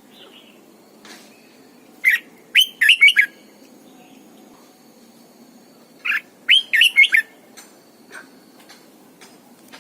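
Red-whiskered bulbul singing: two short phrases of quick, bright chirping notes, about four seconds apart.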